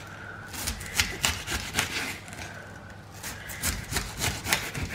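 Kitchen knife slicing through a raw white cabbage, shaving off thin slices in a quick run of short cuts, with a brief pause about halfway.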